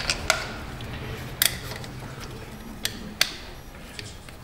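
Ratchet with a socket extension working a spark plug out of the 2.0 turbo engine's cylinder head: a handful of sharp metallic clicks at uneven intervals.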